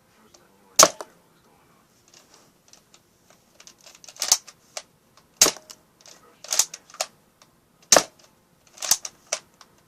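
Nerf gun loaded with baby powder firing about six times, each shot a sharp snap, with fainter clicks between shots as it is primed.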